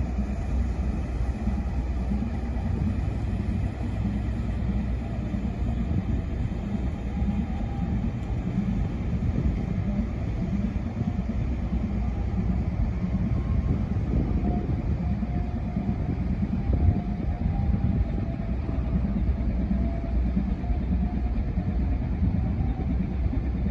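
Steady low drone of a grab-crane sand-and-gravel carrier's diesel engine as the ship passes along the canal, with a faint steady hum over the rumble.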